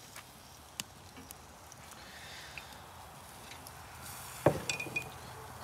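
Grill fire under grease-basted beaver meat crackling with a low hiss and a few scattered small pops, then a single sharp clank about four and a half seconds in as a metal utensil knocks against the grill, followed by a few lighter clicks.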